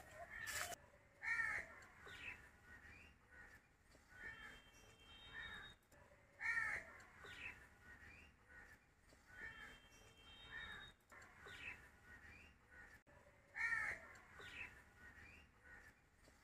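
Crows cawing again and again in short runs of harsh calls, the loudest about a second in, about halfway through and near the end.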